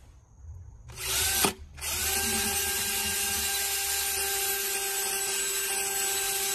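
Cordless drill spinning a paint roller cover inside a plastic bucket. A short burst about a second in, then, after a brief pause, a long steady run with a rising whine as the motor spins up, over a hiss from the whirling roller.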